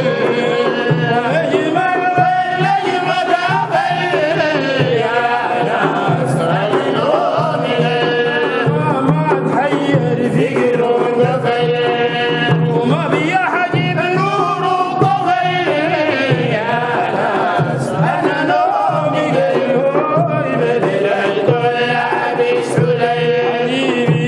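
Male voices singing a Sudanese Sufi madih, a devotional praise song, in a sustained melodic chant with light percussion underneath.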